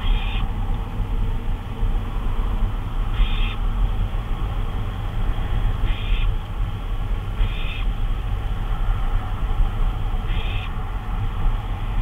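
Barn owl giving short raspy calls, five in a row at irregular gaps of one and a half to three seconds, over a steady low hum.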